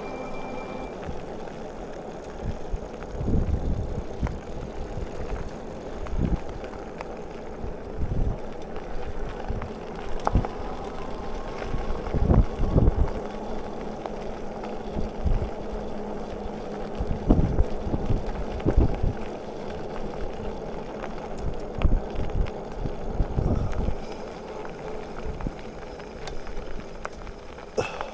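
Bicycle riding along a paved street: wind buffeting the microphone in irregular low gusts over a steady background of road noise.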